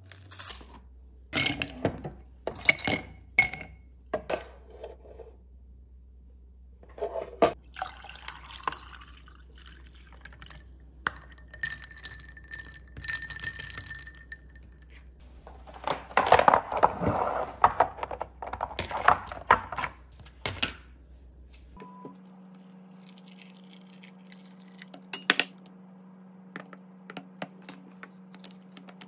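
Dishes and glassware being handled in a kitchen: scattered clinks and knocks, with a short ringing tone near the middle and a few seconds of liquid sound a little past the middle.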